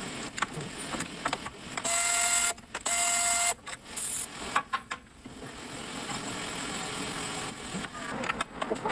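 A power tool runs in two short bursts, each well under a second, about two and three seconds in, working the rear brake hardware. Scattered clicks and knocks of tools and parts are heard around them.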